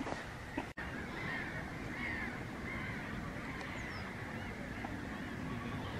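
Faint, distant waterbird calls over a steady low rumble of wind on the microphone, with a momentary dropout in the sound just under a second in.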